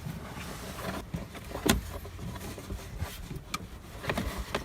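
A cabin air filter being slid into its plastic housing behind the glove box: rubbing and scraping with several sharp plastic clicks and knocks, the loudest about a second and a half in.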